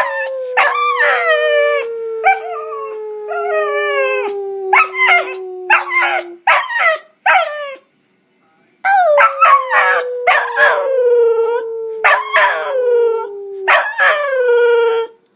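Dog howling in two long bouts with a short pause between them. Each bout has a long howl that slides slowly down in pitch, with shorter falling howls over it.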